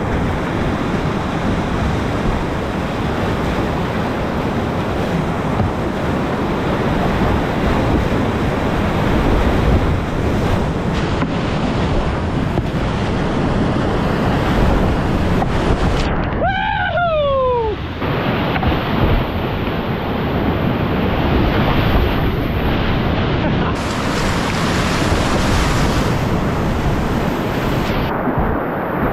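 Loud, steady rush of whitewater rapids. About halfway through, a brief squeal falls in pitch.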